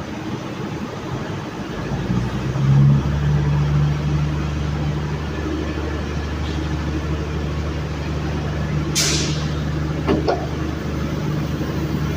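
Diesel multiple unit's engine revving up as the train pulls away, then running with a steady low drone. There is a short burst of air hiss about nine seconds in.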